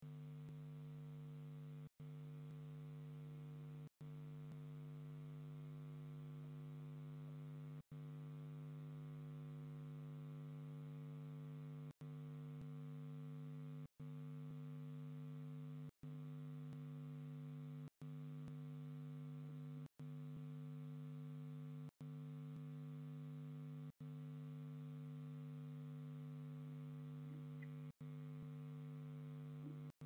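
Steady electrical hum, a low buzzing tone with a stack of overtones, broken by very short dropouts every few seconds.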